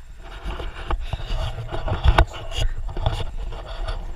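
Mountain bike rolling over a rough dirt track: the tyres crunch and scrape over the dirt and the bike rattles, with a steady low rumble underneath. A few sharp knocks come about two seconds in, the loudest moment.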